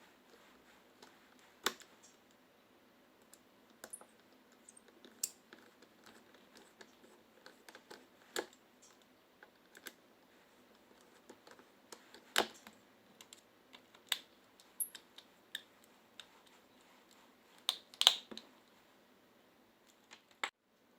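Irregular light clicks and taps of small plastic and metal parts and hand tools being handled while a cordless hair clipper is worked on, with a few sharper knocks about 2, 8, 12 and 18 seconds in.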